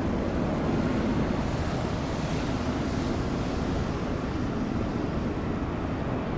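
Jet airliner engines running, a steady low rumble with a broad roar over it that swells slightly about two seconds in.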